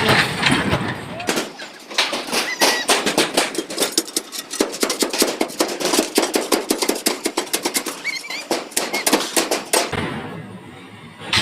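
Rapid, irregular knocks of hammering on shuttering formwork, several sharp blows a second that stop about a second before the end.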